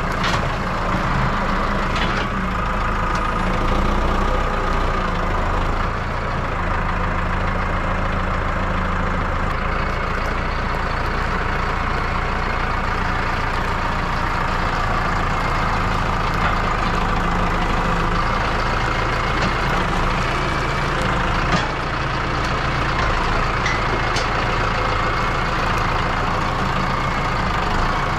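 A heavy engine running steadily at an even speed, with a low hum.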